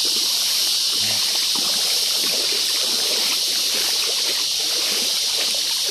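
Water trickling and lapping in small irregular splashes, over a steady high-pitched drone of insects.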